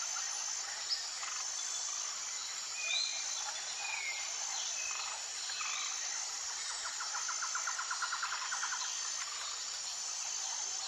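Jungle ambience: insects trilling high in steady repeated phrases, with short bird chirps and, about seven seconds in, a fast rattling call like a frog's croak.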